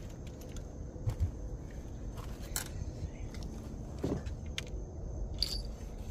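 Outdoor background noise: a low steady rumble with a few light clicks and taps scattered through it.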